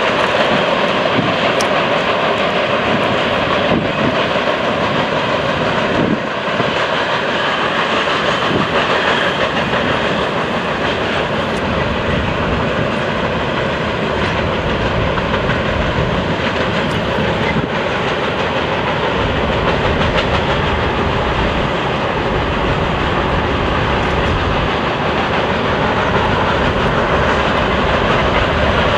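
Freight train cars rolling past: a steady, loud rumble and clatter of steel wheels on the rails.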